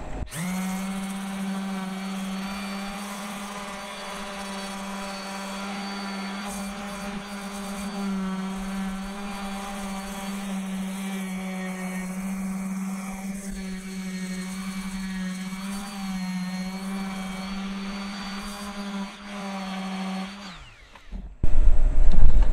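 DeWalt random orbital sander running steadily with an even motor hum while sanding a porcelain enamel surface, then switched off and winding down about two seconds before the end. A loud low rumble follows near the end.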